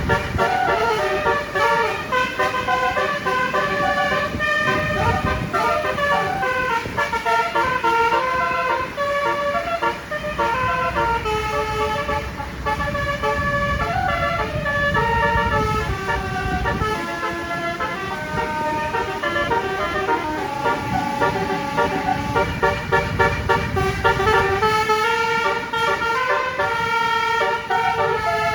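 A tour bus's telolet basuri horn, a set of tuned air horns, playing a long, fast melody of stepping notes. A low rumble runs beneath it.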